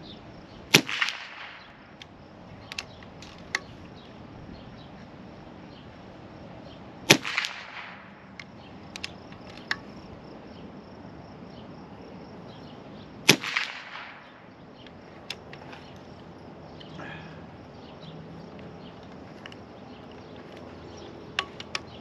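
Three shots from a Cattleman M1 .25-calibre air rifle, about six seconds apart, each a sharp crack with a short fading tail, with a few small clicks between shots.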